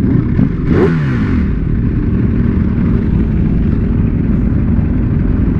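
Ducati Panigale V4 superbike engine running at low revs, with a quick throttle blip about a second in, the revs rising and falling back.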